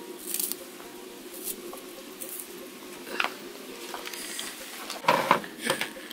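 A knife cutting a red onion held in the hand, a few soft crisp cuts with small pieces dropping into a plastic bowl. Near the end there is a louder burst of rustling and clatter as things are handled.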